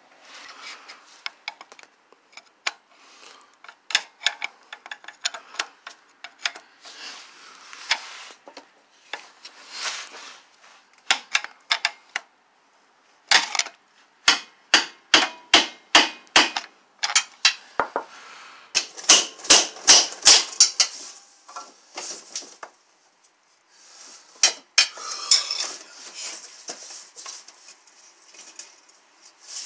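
Sharp metal-on-metal clanks from a long pry bar knocked against the inner CV joint housing to drive the axle out of the transmission. The clanks come in quick runs of several strikes a second, with short pauses between runs.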